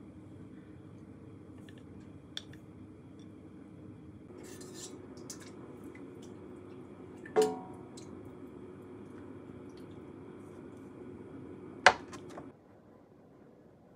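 Dishes and cooking utensils being handled: scattered light clicks, one loud ringing clank about halfway through, and a sharp click near the end, over a steady hum that stops just after that click.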